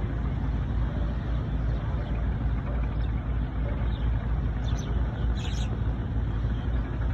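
River ambience dominated by a steady low engine rumble, like motorized boats running on the water. A couple of brief higher-pitched sounds come in about five seconds in.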